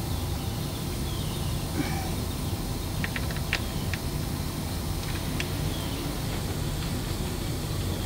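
A few light metallic clicks as a Super73 e-bike's rear hub-motor wheel is worked into the frame, a cluster about three seconds in and another a couple of seconds later, over a steady low hum.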